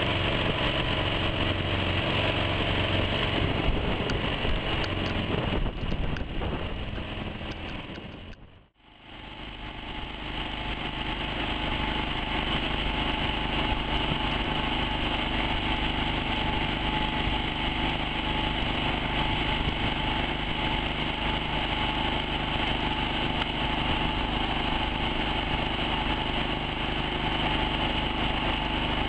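Home-made mud-motor outboard engine running steadily, pushing a boat. About nine seconds in, the sound fades out almost completely and fades back in, then the engine runs on evenly.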